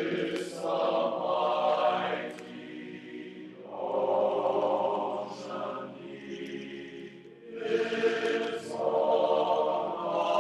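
Choral singing as background music: several voices holding long notes in phrases that swell and fade every few seconds.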